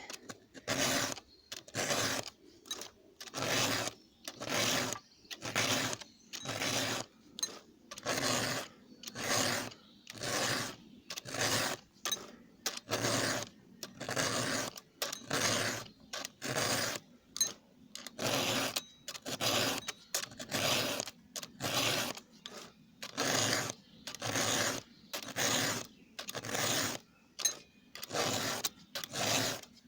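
Hand file rasping across the teeth of a chainsaw chain during sharpening, in a steady rhythm of about three strokes every two seconds, each stroke a short scraping rasp.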